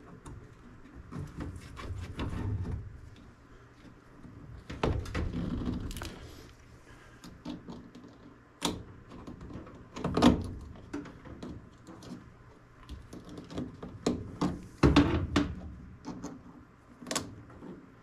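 Hands refitting the flame sensor and its wiring inside a gas furnace's burner compartment: scattered clicks, knocks and rubbing of metal parts and wires, with a few sharper knocks partway through.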